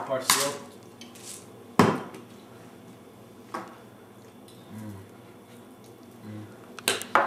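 Tableware clinking and knocking at a kitchen counter as people eat and season their food: a few separate sharp knocks of spoons, bowls and things set down on the counter, the loudest about two seconds in and a quick cluster near the end.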